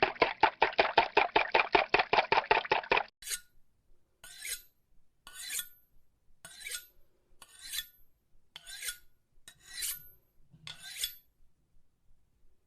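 Eggs beaten with a whisk in a bowl, fast even strokes about six or seven a second, stopping about three seconds in. Then a knife drawn along a sharpening steel, one bright rasping stroke about every second.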